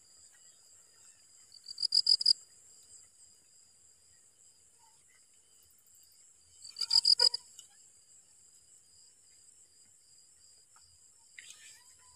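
Night-time insect chorus: crickets trilling steadily at a high pitch, with two loud, rapidly pulsing chirp bursts, one about two seconds in and one about seven seconds in.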